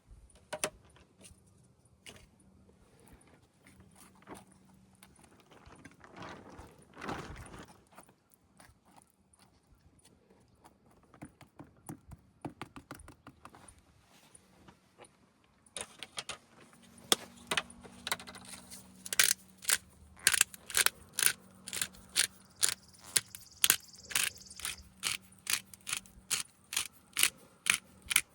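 Small hard objects being handled: scattered clicks at first, then from about halfway a quick run of sharp clicks and knocks, two or three a second, over a faint low steady hum.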